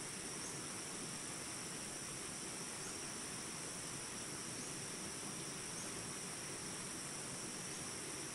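Steady flowing water, like a stream, with a continuous high insect trill over it and a faint short chirp every couple of seconds.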